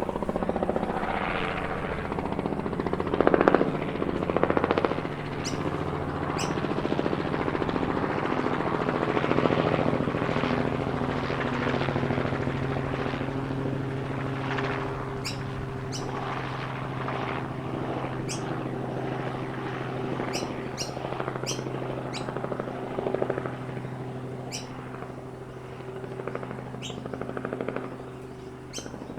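Small helicopter flying by, its rotor and engine drone loudest a few seconds in and then slowly fading away. Birds chirp in short high calls throughout, more often as the helicopter recedes.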